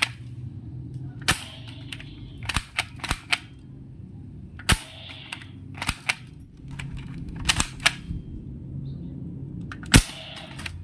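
Toy gun being fired in a series of sharp cap-like shots, some single and some in quick runs of three or four. The loudest shot comes near the end.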